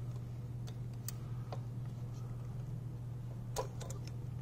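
A few scattered light clicks and taps from hand-fitting a new fuel injector as it slides into place, over a steady low hum.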